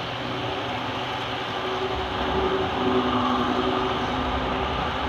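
Model passenger train running past on its track: a rumble of wheels and drive, with a steady whine, getting louder about two seconds in as the train comes close.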